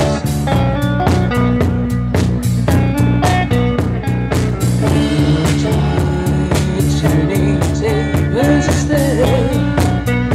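Live rock band playing: drum kit keeping a steady beat under electric bass and electric guitar.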